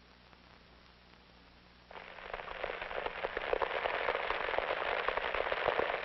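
Low film-soundtrack hiss and hum, then about two seconds in a dense crackling noise full of small rapid clicks starts, builds and keeps going.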